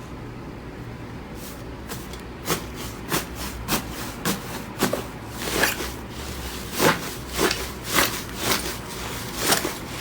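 Slime being pressed and squished by hand, giving a series of short crackling pops about one to two a second over a low steady hum.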